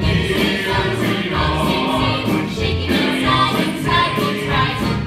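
Cast of a stage musical singing together as a chorus over instrumental accompaniment, several voices in ensemble.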